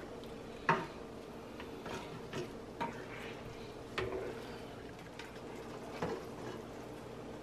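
A spoon stirring through simmering sauce in a pan, with a few light knocks of the spoon against the pan, the clearest about a second in and near the middle. The sauce is being stirred as cornstarch slurry thickens it.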